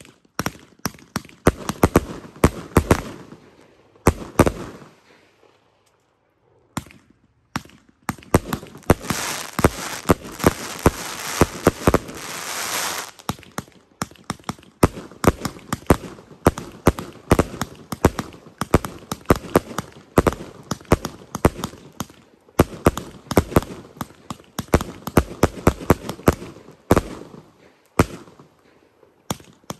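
A finale of 200-gram consumer firework cakes fused together, firing rapid sharp reports one after another. A dense crackle runs from about eight to thirteen seconds in, and there is a short pause about five seconds in.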